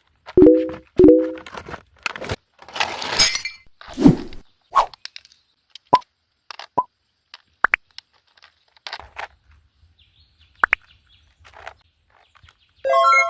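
Hard plastic parts of a remote-control rock crawler and its packaging being handled: scattered clicks, taps and knocks, with a rustle of packaging about three seconds in. Two short beeps sound about half a second and a second in, and a brief chirpy electronic tone comes near the end.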